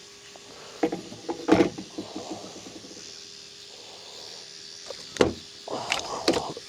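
A big catfish thrashing while it is held, heard as bursts of knocks and scuffs: a couple about a second in and a cluster near the end.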